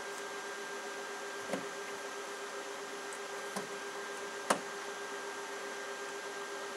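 Meter test probes being pushed into a UPS output outlet: a few small clicks and taps, the sharpest about four and a half seconds in, over a steady electrical hum.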